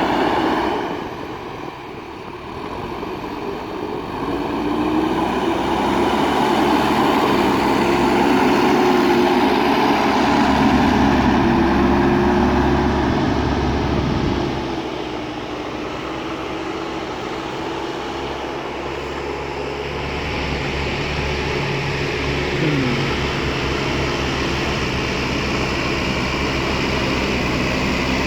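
Diesel engine of a JCB backhoe loader running steadily and working, its revs and level rising and easing off as the machine digs, with a steady engine hum throughout.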